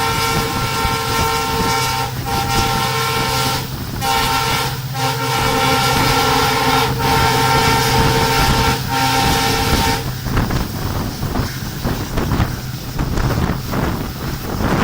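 WDP-4D diesel locomotive sounding its multi-tone horn almost non-stop in long blasts with brief breaks, over the steady drone of its engine accelerating. About ten seconds in the horn stops, leaving the rattle and clatter of the passing train and wind.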